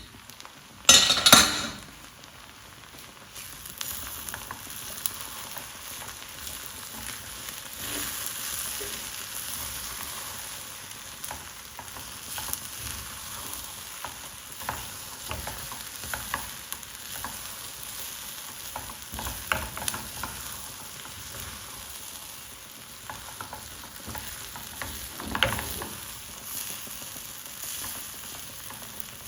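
Rice in a pot sizzling over the heat as the last of its stock water cooks off, with a spoon scraping and stirring in the pot now and then and a louder scrape about a second in.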